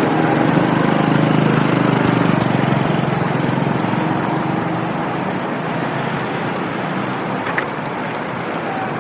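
Close city street traffic: a passing vehicle's engine hum fades over the first few seconds, leaving a steady wash of traffic and tyre noise, with one short click about seven and a half seconds in.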